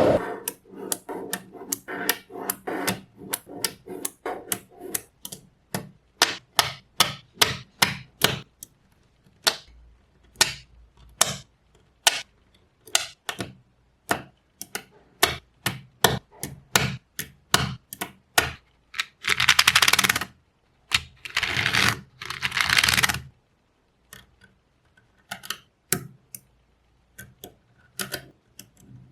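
Small magnetic balls snapping together one by one with sharp clicks, about one or two a second and unevenly spaced. Twice, past the middle, there is a longer rattle lasting about a second.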